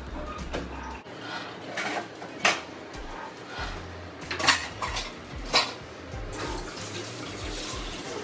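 Kitchenware clinking and knocking: a handful of sharp clinks, the loudest about two and a half, four and a half and five and a half seconds in.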